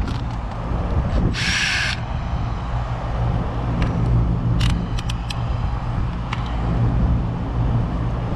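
Air-conditioner condensing unit running with a steady low hum from its fan and compressor, with a few light clicks and a brief hiss about a second and a half in.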